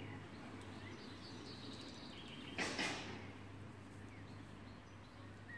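Quiet outdoor ambience with a steady low hum and faint bird chirps, broken by one brief rustle a little under three seconds in.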